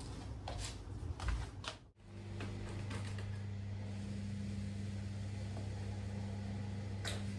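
A few light clicks and knocks of kitchen handling, then a steady low electric hum of a running kitchen appliance, with one sharp click near the end.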